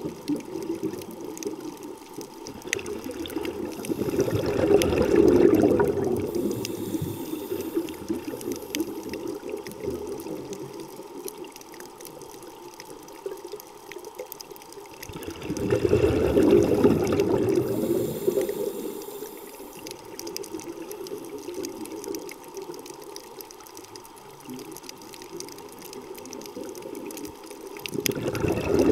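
Underwater sound recorded on a coral reef. A low rushing, bubbling noise swells up and dies away about every eleven seconds, and a faint scatter of crackling clicks runs between the swells.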